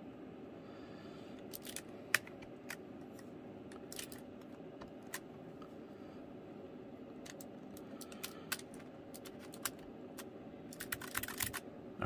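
Keycaps being pressed onto the Keychron K3's low-profile switches: scattered light plastic clicks and taps, with a quick run of clicks shortly before the end.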